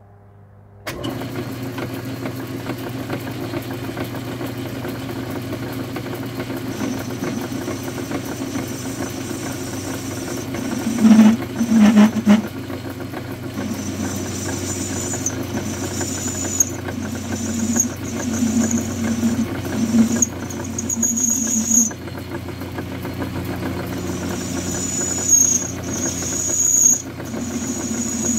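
Metal lathe starting up about a second in and then running steadily while a tool bit chamfers the edge of a spinning steel cap. The cut comes and goes in short high squeals, with a louder stretch a little before halfway.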